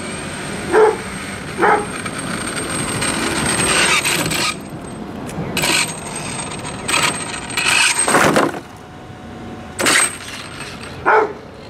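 A dog barks several times, short separate barks. Between the barks a Redcat Earthquake 8e electric RC truck drives along the asphalt, with a rushing noise that rises to about 4 seconds in, and it passes close by near the end.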